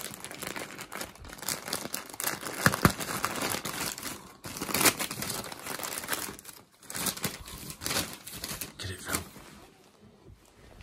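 Glossy tartan wrapping paper crinkling and tearing as a present is torn open by hand, in uneven spells of rustling with short pauses, dying down near the end.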